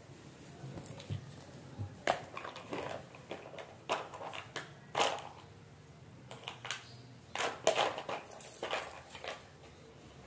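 Tailoring tools being handled on cloth over a stone floor: a plastic ruler and measuring tape set down, slid and picked up while chalk marks are made, giving irregular light knocks, scrapes and rustles in two short clusters.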